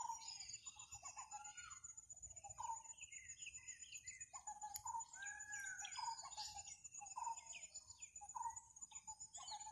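Several birds calling: a busy run of short chirps and whistled notes, some sliding up or down in pitch, over a steady high-pitched whine.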